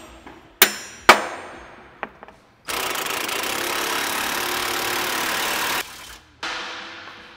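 Two hammer blows ringing on steel, half a second apart, then about three seconds of steady, even noise from a running tool that stops abruptly, and one more metallic knock near the end.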